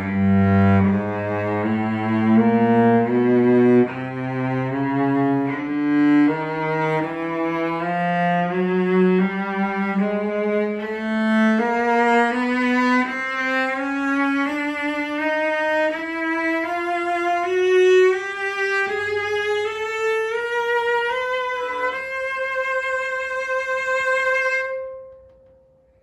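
1928 E.H. Roth cello played with the bow: a slow rising scale of separate notes climbing from the low register to high up the neck, ending on a long held high note that dies away near the end.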